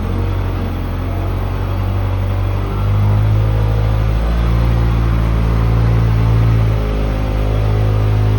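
Caterpillar 232B skid steer loader's diesel engine running, growing louder about three seconds in and easing back a little near seven seconds.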